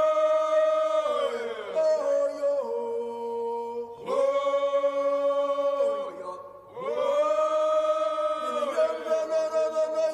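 Background music with a chanted vocal: long held notes that bend downward at their ends, a new phrase beginning every three seconds or so.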